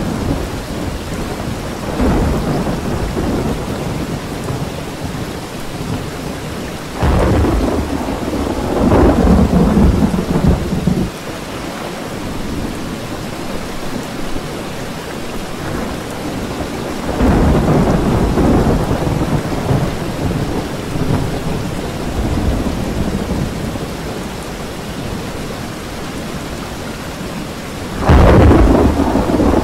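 Rolling thunder from a supercell's cloud-to-cloud lightning, rumbling four times. The second roll comes in suddenly, and the loudest breaks in sharply near the end, over a steady hiss of rain.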